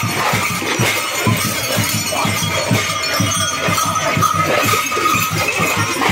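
Festival drums and clashing cymbals playing a fast, even beat to accompany the Lakhe dance.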